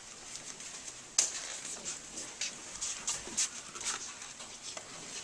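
Wooden breaking boards knocking and clattering as they are handed over and held: one sharp knock about a second in, then scattered light taps and clicks.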